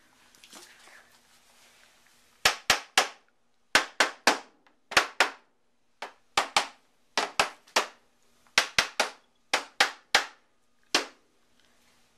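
Hammer blows, sharp and ringing, struck in quick runs of two or three, about twenty in all, starting a couple of seconds in.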